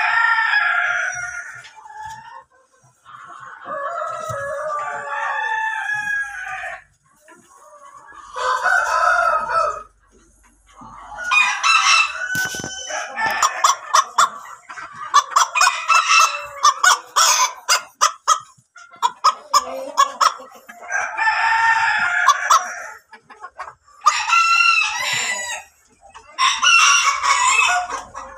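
Chickens in a poultry pen: roosters crow several times in long drawn-out calls, and hens cluck in rapid runs through the middle and again near the end.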